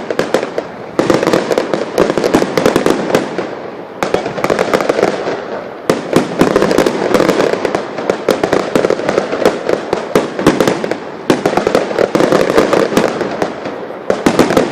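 Fireworks finale: a dense, continuous barrage of bangs and crackles that surges in fresh waves every two to three seconds.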